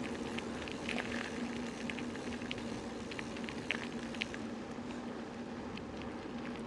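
Loaded bicycle rolling along a track: steady tyre noise with many small irregular ticks and crackles, over a faint steady hum.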